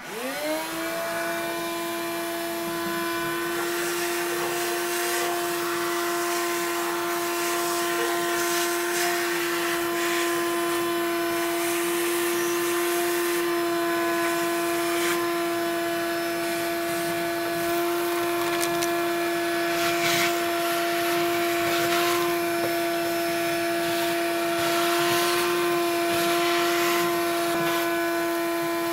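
A Ridgid NXT wet/dry shop vac running and sucking ash out of a pellet grill. It is switched on at the start and its motor whine rises to a steady pitch within the first second, then holds over a steady rushing hiss, with scattered short rattles as ash and pellet debris are drawn up the hose.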